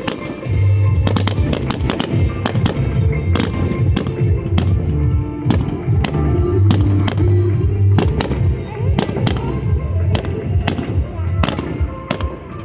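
Fireworks going off in rapid succession, many sharp bangs and crackles close together, over loud music with a heavy bass.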